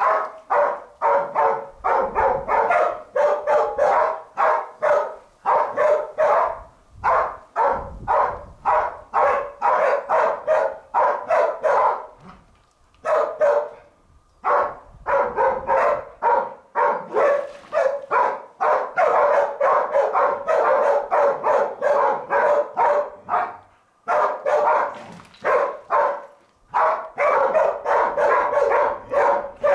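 Hunting dog barking in a rapid, steady run of about two barks a second, with a few brief pauses. It is baying a wild boar held at bay among the rocks.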